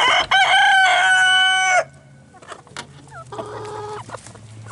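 A rooster crowing close by: one loud, full crow lasting nearly two seconds. A shorter, quieter call from the chickens follows about three seconds in.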